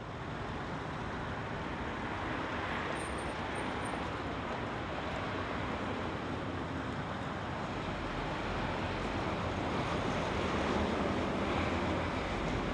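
Steady road traffic noise, a continuous rush of passing vehicles, fading in at the start.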